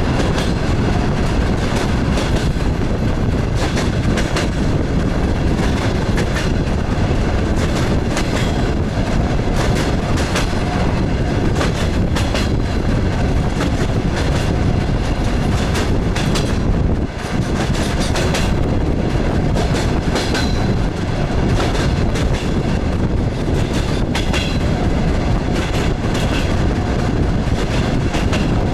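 DR1A diesel multiple unit under way, heard from aboard: a steady running rumble with the clickety-clack of its wheels over rail joints.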